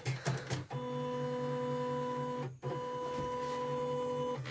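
CNY portable embroidery machine's carriage motors running at start-up, a steady mechanical whine in two runs with a brief break about two and a half seconds in.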